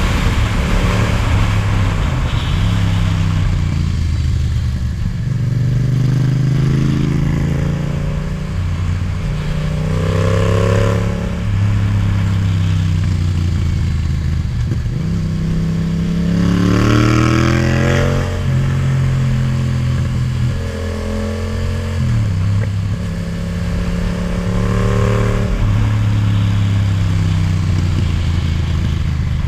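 Yamaha MT-07's parallel-twin engine, fitted with an Akrapovic titanium exhaust, heard from the rider's seat on the move. The engine pitch rises and falls repeatedly as the rider works the throttle and gears through bends, with a clear rev-up about two-thirds of the way in.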